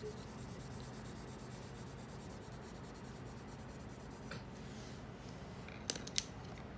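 Colour pencil shading on paper, a soft steady scratching. Near the end come two sharp clicks as the pencils are handled and swapped.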